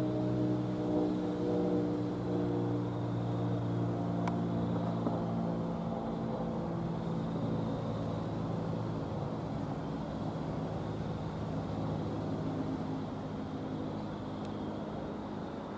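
NJ Transit diesel commuter train pulling away: its engine's steady hum fades over the first several seconds, leaving a low rumble of the train on the track that slowly dies down.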